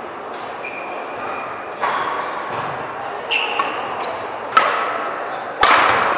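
Badminton rally in a large hall: five sharp racket hits on the shuttlecock, about a second to a second and a half apart, each ringing on in the room, the loudest near the end. Short high squeaks of shoes on the court floor come between the hits.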